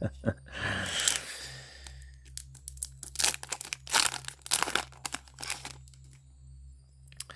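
A foil Yu-Gi-Oh booster pack wrapper being torn open and crinkled by hand: a tearing rasp in the first couple of seconds, then a run of sharp crinkles and crackles that dies down near the end.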